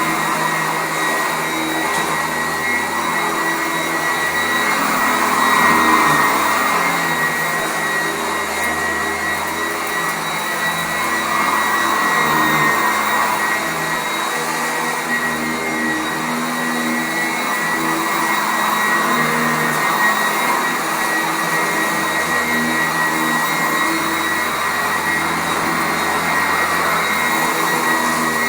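Sanitaire SC899 commercial upright vacuum cleaner running on carpet: a steady high motor whine over rushing air, the sound swelling and easing every few seconds as it is pushed back and forth.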